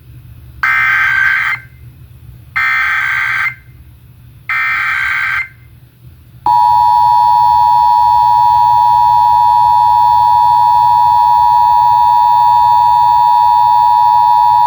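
Emergency Alert System Required Monthly Test on broadcast radio: three short, harsh bursts of SAME header data, about a second apart, then the steady two-tone EAS attention signal (853 and 960 Hz) sounding for about eight seconds.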